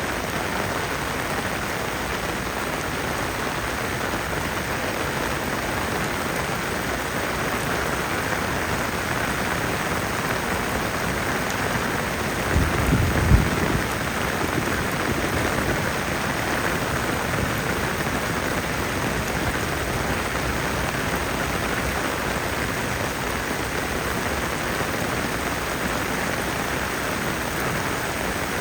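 Steady heavy rain falling and pattering on surfaces. About halfway through comes a brief low thump or rumble.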